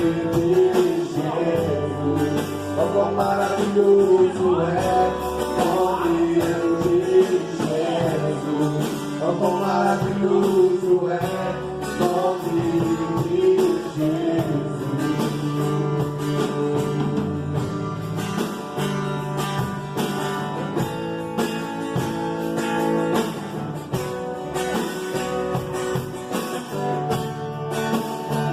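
Gospel pagode band playing a song, with plucked strings, a steady bass line and a melody that bends in pitch over it, with singing.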